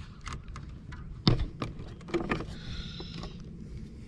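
Handling noises as a just-caught crappie is brought into the boat: scattered clicks and knocks with one sharp thump about a second in, over a low steady rumble.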